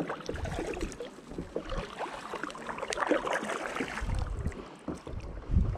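Kayak paddle strokes: water splashing and dripping off the blades in an irregular patter. There are two heavier low rumbling thumps, about four seconds in and again just before the end.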